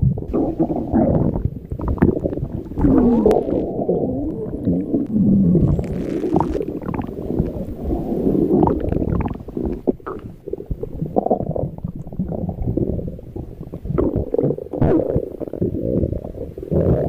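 Stomach growling: a continuous run of low gurgling rumbles, some of them sliding up and down in pitch.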